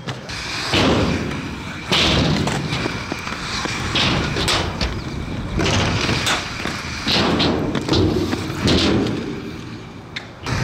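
Inline skate wheels rolling and scraping on skatepark concrete, broken by several sharp thuds and slaps as the skater lands and strikes the ramps.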